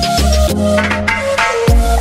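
Background music with a steady beat and deep bass drum hits.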